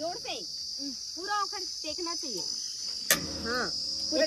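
Steady high-pitched insect chirring, with people talking over it and a sharp click about three seconds in.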